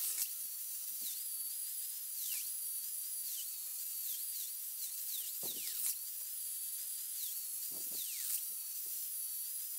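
Angle grinder with an abrasive disc grinding mill scale off small steel brackets and putting a bevel on them for welding. Its high whine drops in pitch each time the disc is pressed into the steel, several times over, and climbs back when the pressure comes off.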